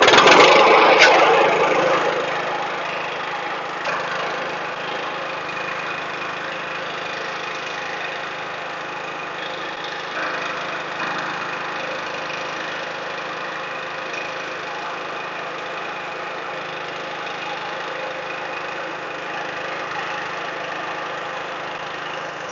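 An old lawn mower engine catching after a pull-start, loudest as it fires up, then running steadily. It is running for the first time after sitting, and is expected to burn smoke out of the exhaust for a while.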